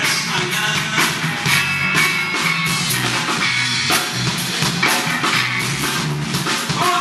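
Live rock band playing, with the drum kit and bass guitar to the fore and guitar over them.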